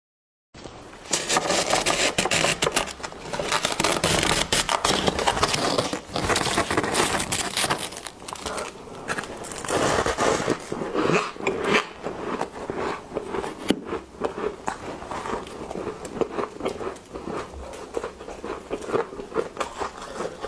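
Powdery freezer frost crunching and crackling as it is grabbed by hand and bitten and chewed: a dense, continuous run of crisp crunches.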